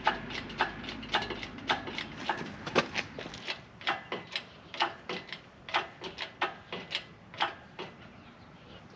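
Hydraulic engine hoist being worked to lift an LS1 V8 out of the car: a run of sharp metallic clicks, about two a second, thinning out near the end.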